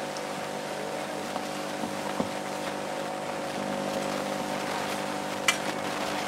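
Steady hum of a room's sound system, with several faint held tones, broken by a light knock about two seconds in and a sharper click about five and a half seconds in.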